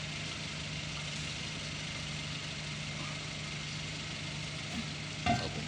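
Car engine idling steadily, with a brief clatter about five seconds in.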